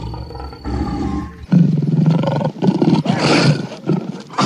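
Lion roaring: a series of deep, rough roars that start about a second and a half in.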